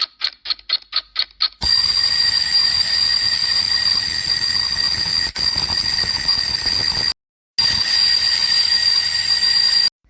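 Alarm clock going off: fast high beeping, about four beeps a second, then a continuous high bell ring from about a second and a half in, cut off briefly near the seventh second, that stops just before the end.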